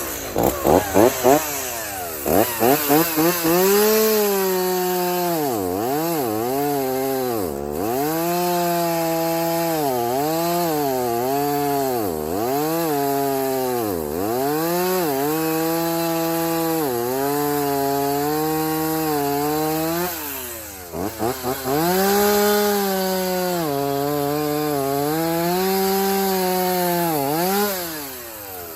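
Stihl Farm Boss chainsaw felling a black birch. It is blipped a few times at the start, then runs at full throttle in the cut, its engine pitch sagging and recovering again and again as the chain loads up in the wood. About two-thirds of the way through it drops back briefly, is blipped again and cuts on.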